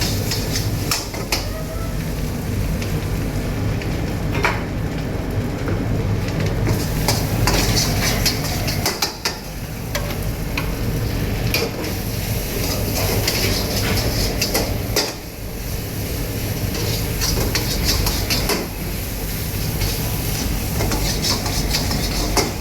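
Stir-frying in a wok on a high flame: a metal ladle scraping and clanking against the wok while the food sizzles. A steady low rumble runs underneath.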